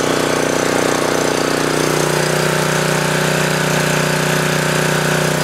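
9 HP Honda GX-series single-cylinder engine of a backup generator running steadily, still cold shortly after a cold start in sub-zero weather.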